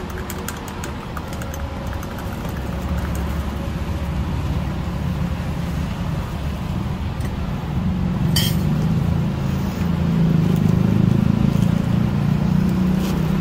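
Road traffic rumbling past, swelling louder in the second half as heavier vehicles go by, with light clinks of cups and utensils and one short sharp clink about eight seconds in.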